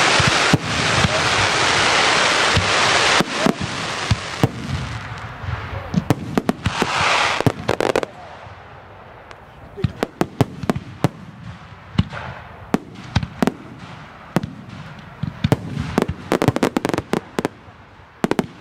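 Aerial firework shells bursting. For the first eight seconds there is a dense, continuous crackling hiss with bangs over it, then a quick series of sharp, separate bangs.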